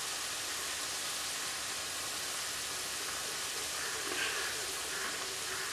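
Potato-wrapped chicken rolls deep-frying in hot oil in a pan: a steady sizzling hiss.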